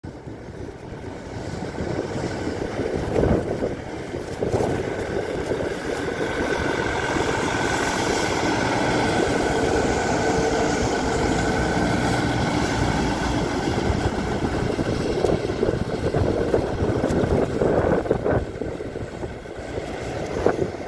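CN Budd Rail Diesel Car converted to a track geometry car passing: its diesel engines running and steel wheels rolling on the rails, building up over the first couple of seconds and steadiest as it goes by broadside. A few sharp clicks stand out, about three seconds in, again a second later, and twice near the end.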